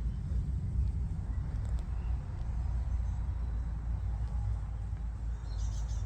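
Uneven low rumble of wind buffeting the microphone, with a brief high bird chirping near the end.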